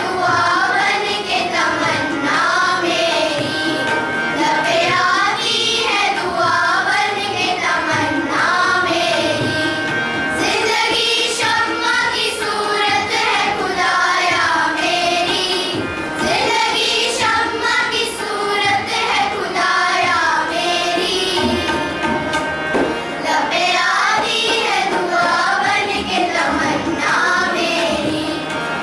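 A choir of schoolgirls singing a song together.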